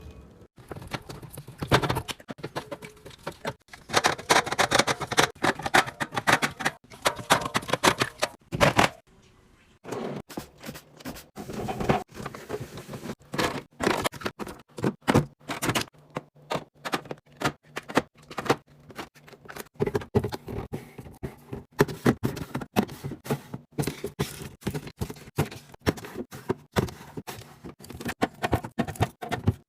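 Rapid, irregular clicking, tapping and clattering of food containers, bottles and packaging being handled and set down while restocking a fridge, with a brief pause about a third of the way in.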